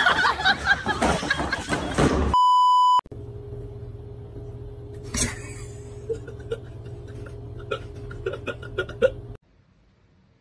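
Voices for about the first two seconds, cut off by a single loud, steady electronic beep lasting about half a second. Then a low steady hum with scattered small clicks and knocks, dropping to near silence about a second before the end.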